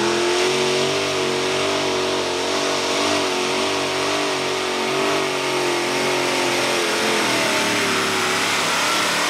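Modified pulling tractor with several supercharged automotive engines running at full throttle while it drags a weight sled: a loud, steady engine drone that climbs in pitch right at the start, then holds, sagging a little near the end.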